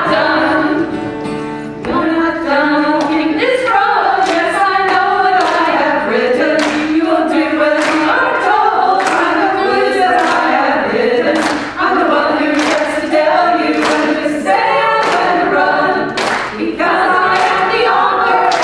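Female vocal group of six singing a song together, with a sharp beat about once a second under the voices.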